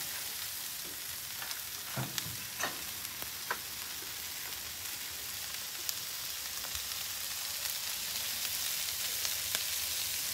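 Butter sizzling on a hot Blackstone flat-top griddle: a steady frying hiss, with a few light clicks and knocks in the first few seconds. The sizzle grows a little louder near the end as a mound of cornbread hoecake batter goes down into the butter.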